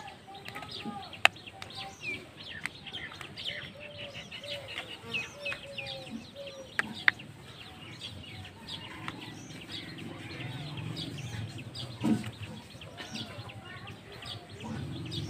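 Chickens clucking and small birds chirping, with a few sharp clicks of plastic toy parts being pressed and snapped together, the loudest about a second in and twice around seven seconds, and a single knock about twelve seconds in.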